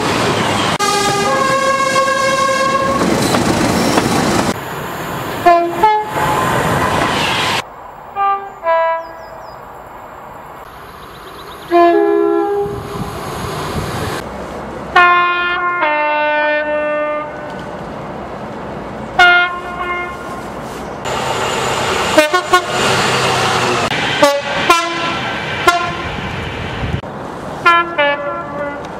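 A run of British trains sounding their two-tone horns, one recording after another with abrupt cuts between them. The blasts are short, two notes at a time, often high then low, several per train. Some come over the rush and rumble of a train passing at speed.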